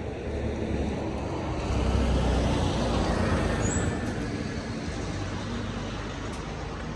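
A road vehicle passing by, its engine and tyre noise swelling about two seconds in and fading away over the following few seconds.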